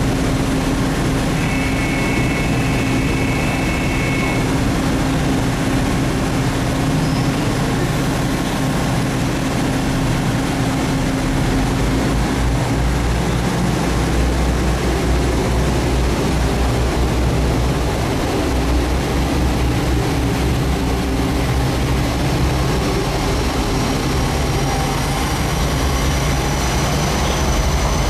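Boeing 737-800's CFM56 jet engines running at low taxi thrust: a steady rushing drone. A faint high whine slowly rises in pitch near the end.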